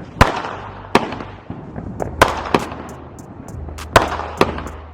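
Consumer fireworks going off: a string of sharp, irregularly spaced bangs, about six of them, with fainter small pops and crackles between.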